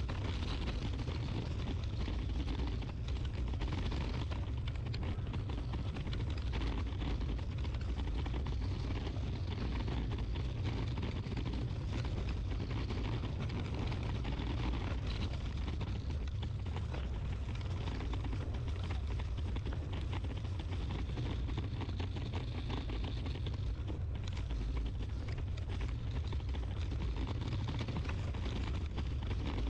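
Steady wind rumble on the microphone: a constant low rumble with a hiss of outdoor noise above it, with no separate events.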